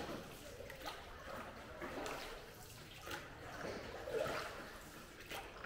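Oars of a small rowboat dipping into still water inside a cave, making soft splashes and trickles about once a second.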